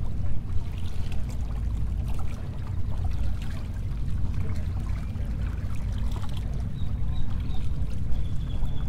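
Wind rumbling on the microphone, with small waves sloshing and trickling against the jetty's rocks.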